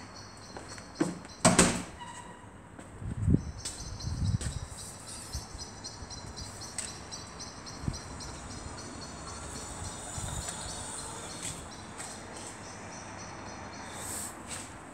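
Knocks, thumps and rubbing from a handheld phone being moved through a doorway, the loudest a sharp knock about a second and a half in. A steady, high, fast-pulsing chirr runs behind it, dropping out briefly after the knock.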